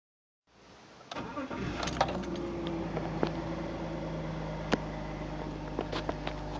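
BMW E46 320i's straight-six engine starting from cold: a short build-up, catching about a second in, then settling into a steady idle with a few sharp clicks over it.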